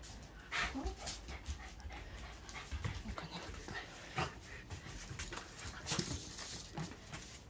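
Shiba Inu panting in short, uneven breaths while greeting a returning family member, a sign of excitement.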